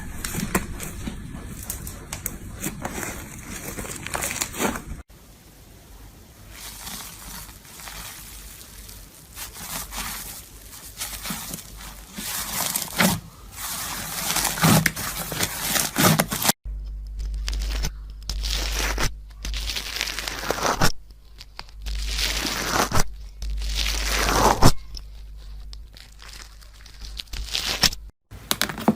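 Slime being squeezed, stretched and poked by hand, giving repeated crackling, crunching and squishing sounds over several short clips. A low hum runs under the later part.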